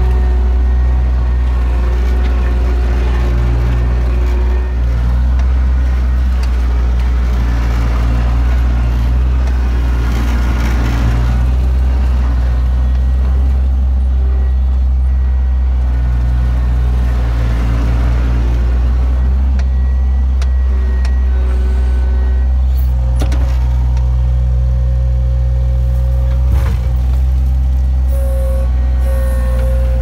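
Skid loader engine running steadily as it carries straw bales in its bucket: a constant low drone with higher whining tones that shift in pitch now and then, and a couple of brief knocks in the second half.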